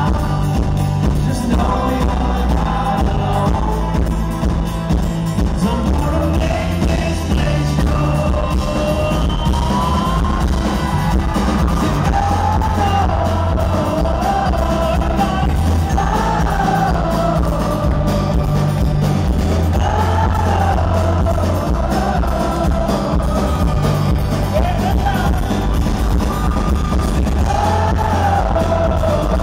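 Live band performing a song: a male lead singer with acoustic guitar over strong bass, heard from within the audience.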